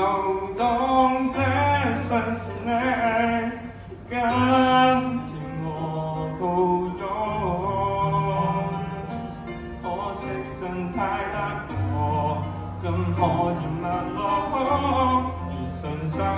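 Young male vocalist singing a Cantonese pop song into a handheld microphone, amplified in the hall, over an accompaniment with sustained bass notes.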